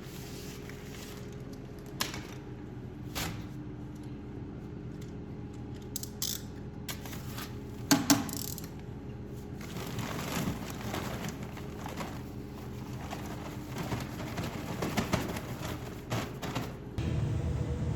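A steady machine hum with scattered knocks and clanks, the loudest a sharp double knock about eight seconds in; the background shifts abruptly near the end.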